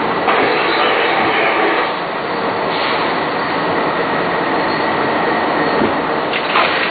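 Train running, a steady loud rumble with a faint high whine through it.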